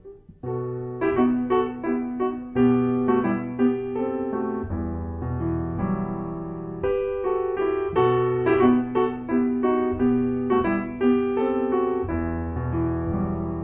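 Piano music, likely an electric piano: a melody of separate struck notes over held bass notes, starting after a brief pause.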